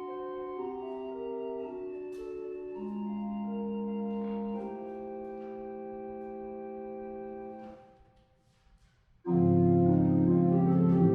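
Organ playing slow, sustained chords that change every second or so, stopping nearly eight seconds in; after a short silence a much louder passage starts with deep bass notes.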